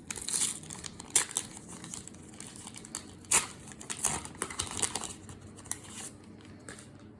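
A trading-card pack wrapper being torn open and crinkled by hand, irregular crackling with a few sharper rips, the loudest about a second in and about three and a half seconds in.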